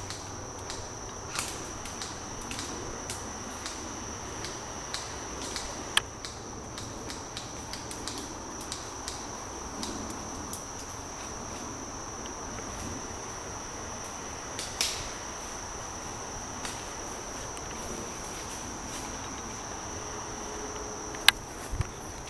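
Insects droning steadily at one high pitch, with a few sharp snaps scattered through, the loudest near the end.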